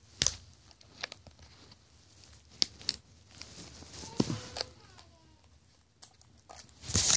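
Hands handling and pulling at a taped-up shipping package: scattered sharp clicks and short rustles, with a louder rustling burst near the end.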